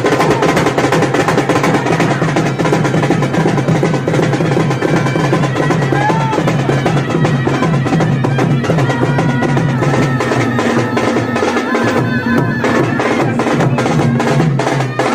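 Loud, fast procession drumming: many rapid drum strokes keeping up a continuous beat.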